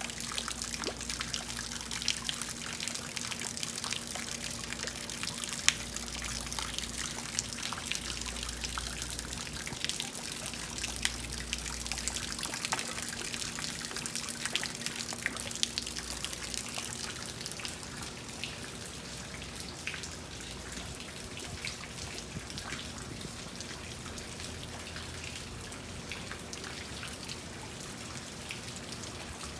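Heavy rain falling: many sharp drop ticks over a steady hiss of water, the drops a little sparser in the second half. A faint steady low hum runs underneath.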